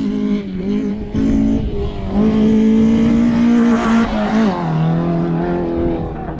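Off-road competition vehicle's engine revving, held at steady speeds: the revs step up about two seconds in, then drop to a lower note near the end.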